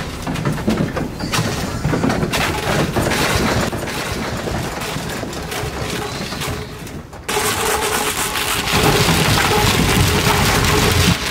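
Piglets being loaded onto a livestock truck: trotters clattering and knocking on the metal ramp and truck floor in a steady jumble of rumbling noise, which gets louder from about seven seconds in.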